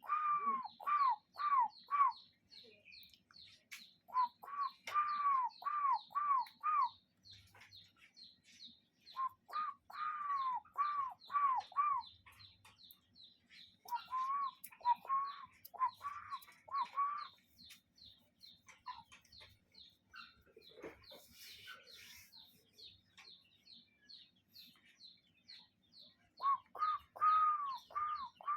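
A bird calling in bouts of five or six arched whistled notes, each bout lasting a couple of seconds and coming back every few seconds. Behind it runs a steady, fast series of short, high chirping notes.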